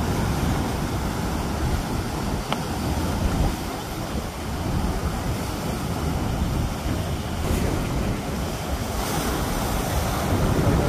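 Surf breaking and washing against granite jetty rocks, a steady rush of water with wind rumbling on the microphone.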